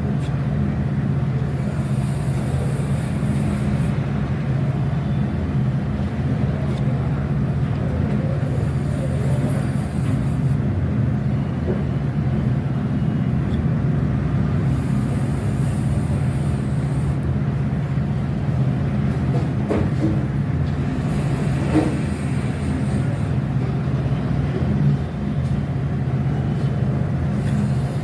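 Steady low mechanical hum, with a soft hiss swelling and fading every few seconds.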